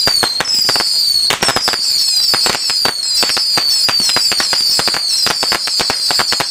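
A long string of firecrackers going off: rapid, irregular sharp bangs, many a second, mixed with high whistles that keep falling in pitch.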